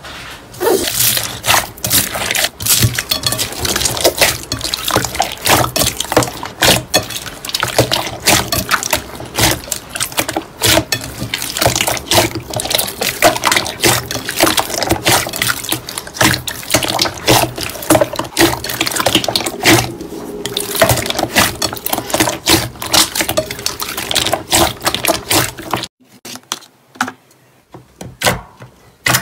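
Hands squeezing and stretching clear slime packed with foam beads: a dense run of squishing and crackling clicks. Near the end it drops to quieter, sparser pops as fingers press a glossy slime.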